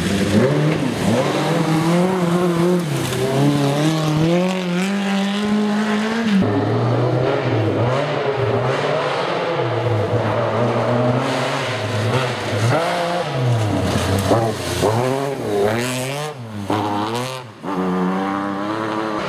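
Rally car engines at full throttle, the pitch climbing and dropping again and again as the cars are driven up and down through the gears past the roadside; about six seconds in the sound changes abruptly to a Lancia Stratos and its Ferrari-built 2.4-litre V6, with a brief lift of the throttle near the end.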